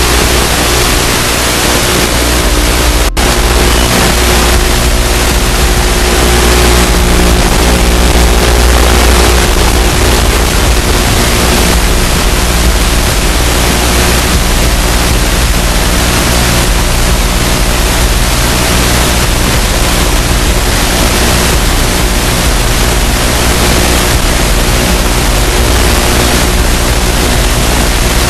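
Loud, steady static hiss from an analog FPV video receiver's empty audio channel, as recorded by the goggles, with faint steady tones beneath it. The hiss drops out briefly about three seconds in.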